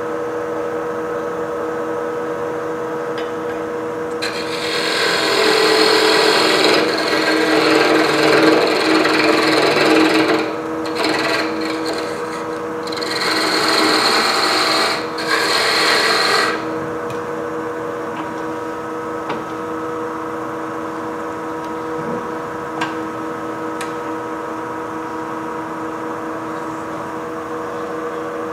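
Wood lathe running with a steady hum while a turning tool cuts into the spinning wood, a coarse scraping hiss in two long passes: the first from about four to ten seconds in, the second from about thirteen to sixteen seconds in.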